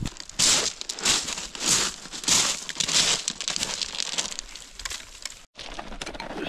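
Repeated dry crunching and crinkling, loud crunches coming roughly every half-second or so, cut off briefly near the end.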